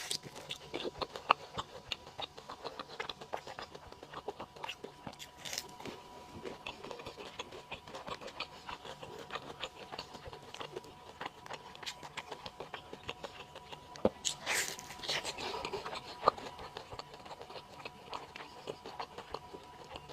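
Close-miked eating sounds of a burger being chewed: a continual run of small wet clicks and crunches, with a louder burst of chewing noise about fourteen seconds in.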